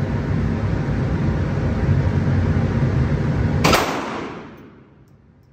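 A single pistol shot from a SCCY handgun about three and a half seconds in: one sharp crack that echoes off the indoor range and dies away over about a second. Before the shot a steady loud rushing noise runs underneath, fading out with the echo.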